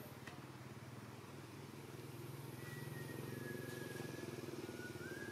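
A motor vehicle engine running steadily off-screen, getting louder toward the middle. Faint high whistle-like notes join from about halfway in.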